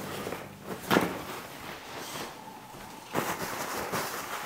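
Steady low hiss from the gas burner heating the oiled carbon steel skillet during seasoning, with a light knock about a second in and a few smaller knocks about three seconds in.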